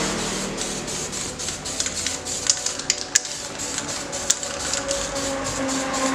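Irregular sharp clicks and taps while a spray-painted motorcycle rim is handled, over a faint aerosol spray-paint hiss. Three clicks about two and a half, three and four seconds in stand out.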